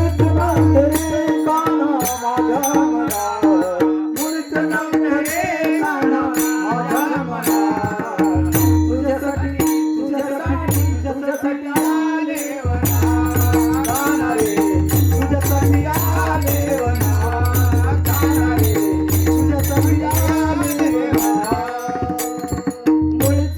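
Instrumental interlude of a Marathi devotional song: a wandering melody over a steady drone, with a regular percussion beat and low drum strokes.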